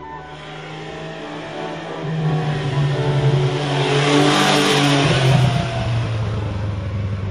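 MV Agusta Rivale 800's three-cylinder engine revving under acceleration, growing louder to a peak about four to five seconds in, then easing off.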